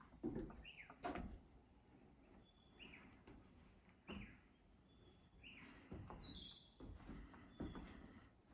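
Faint birds calling: several short downward-curving chirps, with a quick falling run of higher notes about six seconds in. A couple of soft knocks come in the first second.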